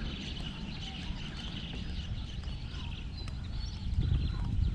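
A steady chorus of high chirping from birds or insects, over a constant low rumble of water or wind noise.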